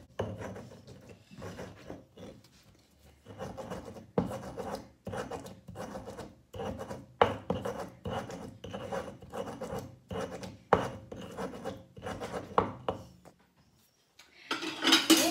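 Stone pestle grinding garlic, salt, coriander and pepper into a paste in a stone mortar: rhythmic rasping, scraping strokes, about one to two a second. The strokes stop about a second before the end, and a louder clatter follows near the end.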